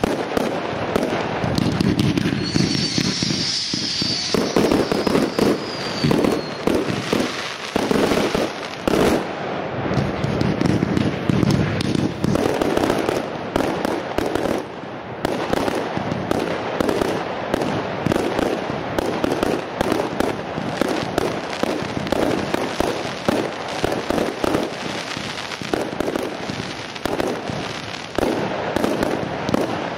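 Professional firework display: a dense, unbroken run of bangs and crackling from many fireworks bursting in quick succession. A high whistle, falling slightly, rises over it a couple of seconds in and lasts about four seconds.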